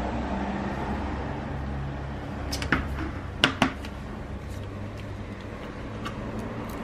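Hands handling an iPhone box and its packaging: rustling and light scraping, with a sharp click or tap near the middle and two more close together just after, over a steady low hum.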